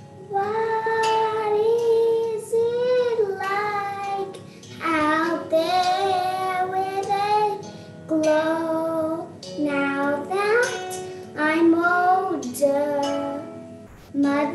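A young girl singing solo, in phrases of long held notes with vibrato and short breaks between them.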